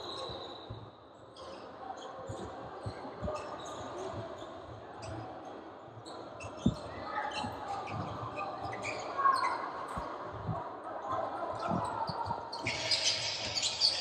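A basketball bouncing on a hardwood gym floor, with irregular sharp thumps, the loudest a little past halfway, over the echoing bustle of a large gym. Short high squeaks, typical of sneakers on the court, run through it, and a louder hiss comes in near the end.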